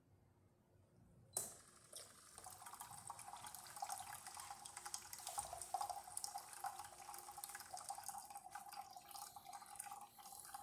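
Hot water running from a DeLonghi Eletta espresso machine's hot water spout into a cup, starting suddenly about a second and a half in, with a steady tone joining about a second later. The machine's hot water function is working after service.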